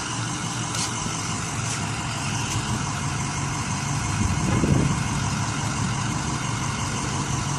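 A motor vehicle engine idling steadily, with a brief louder low swell a little under five seconds in.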